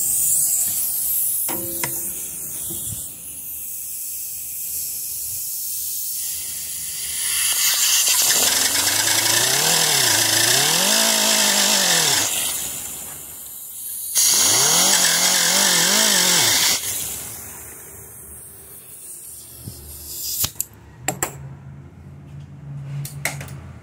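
Handheld power tool sanding a broken screw stub flat on steel, a steady gritty hiss with the motor's pitch sweeping up and down in two loud stretches, stopping about three-quarters of the way through.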